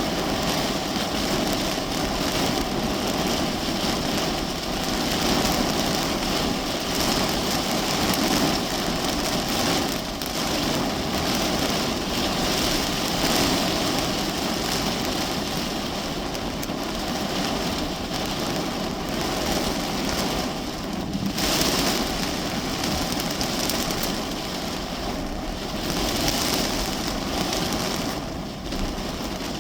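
Heavy rain drumming steadily on the roof and windows of a parked car, heard from inside the cabin.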